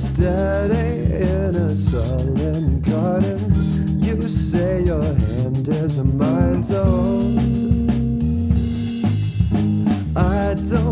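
Background music: a song with guitar, bass and drums, and a melody line bending over a steady beat.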